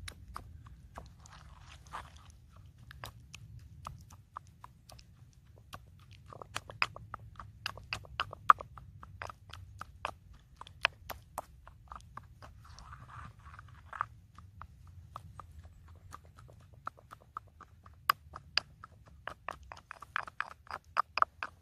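Irregular sharp clicks and taps of hand food preparation with utensils and containers, with brief scraping rustles a few times, over a low steady rumble.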